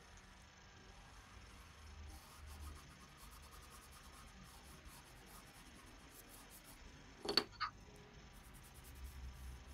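Faint scratchy rubbing of a soft pastel stick stroked across paper, with two sharp clicks in quick succession about seven seconds in.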